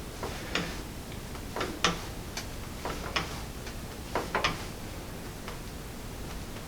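A handful of short clicks and pops, irregularly spaced, from hands-on mobilising of a person's ankles and feet; the sharpest comes about two seconds in.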